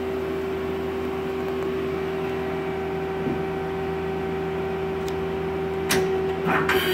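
2010 Mazak Quick Turn Nexus 200 CNC lathe running: a steady machine hum with several fixed tones, then a sharp click about six seconds in and a short burst of mechanical clatter near the end.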